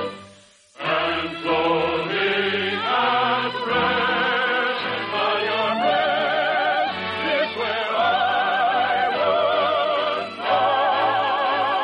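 Operetta singing with orchestral accompaniment, the voices held on long notes with wide vibrato. The music breaks off for a moment just after the start, then carries on.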